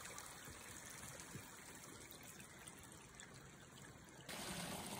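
Faint trickling of water from a small spring-fed forest stream, getting louder suddenly a little after four seconds in.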